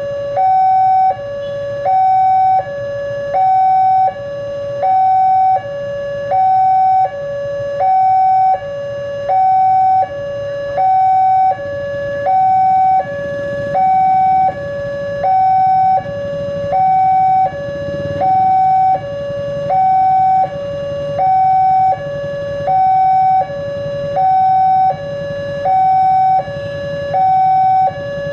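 Railway level-crossing warning alarm: an electronic two-tone signal alternating steadily between a higher and a lower note, about one high-low cycle every second and a half, with the higher note the louder. A low rumble of waiting traffic runs beneath it.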